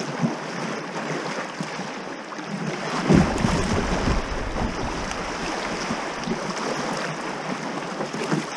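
River water rushing over a shallow riffle around a kayak's hull, as a steady wash of noise. About three seconds in it gets louder, with a low rumble.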